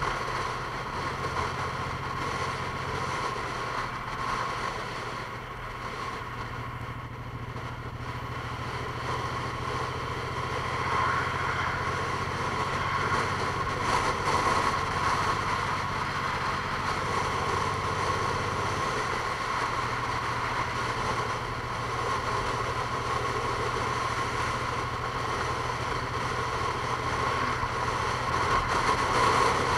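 A vehicle running steadily: a low engine hum that shifts in pitch a couple of times, over a constant whine and a noisy hiss.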